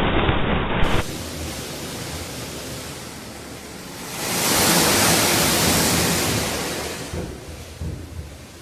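Rushing storm noise, a steady hiss of wind and rain or hail. It swells into a loud, high hiss about four seconds in, then fades off.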